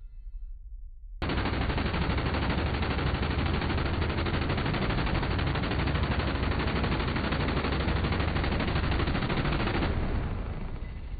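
Minigun firing one long continuous burst: the rotary barrels fire so fast that the shots merge into a single loud unbroken stream. It starts abruptly about a second in, runs for about eight and a half seconds, then dies away over about a second.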